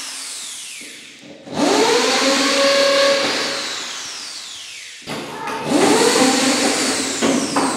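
Repeated electronic whoosh-like swells. Each starts suddenly with a rising tone and a falling high sweep, then fades out over a few seconds. A new one begins about one and a half seconds in and another about five seconds in.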